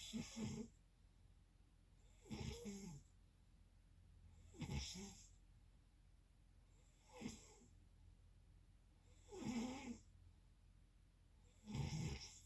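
Snoring: short snores repeating evenly about every two and a half seconds, six in all.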